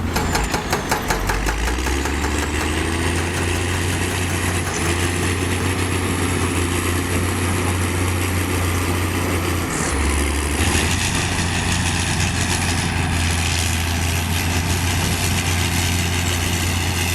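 Heavy diesel engine of earthmoving machinery (excavator or bulldozer) running steadily under work, its low hum shifting in pitch about ten seconds in.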